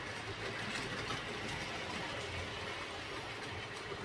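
Model trains running on a layout's track: a steady rolling rush of wheels on rails, with light irregular clicks over rail joints.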